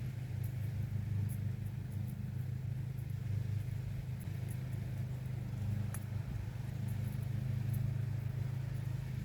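A steady low mechanical hum, like a motor running, with faint small clicks and ticks over it.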